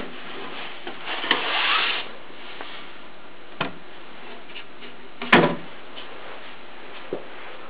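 Wooden drawer slid open with a short rasping scrape about a second in, then knocks, the loudest about five seconds in as it is pushed shut.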